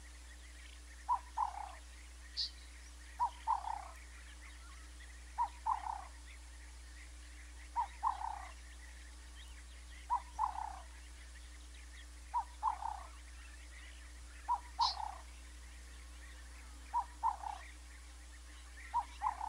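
An animal calling in a steady, regular series, about once every two seconds. Each call is a short note followed by a longer falling note. Two brief high chirps come in, one a couple of seconds in and one past the middle.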